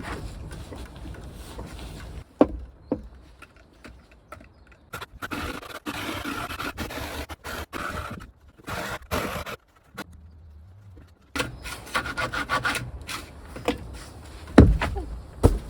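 Wood scraping and rubbing in irregular bursts, with two heavy thumps near the end.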